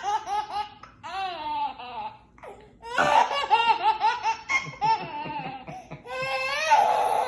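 A baby laughing hard in several fits of quick, high-pitched, repeated laughter with short breaks for breath.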